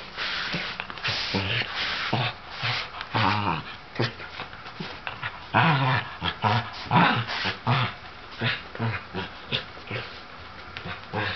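Shetland Sheepdog making short, repeated growls and whines in rough play with a cat.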